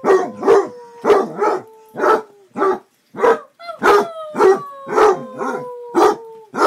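Two hounds, one of them a basset hound, baying together. One barks over and over, about two barks a second, while the other holds long howls underneath, each a few seconds long and sliding slowly down in pitch.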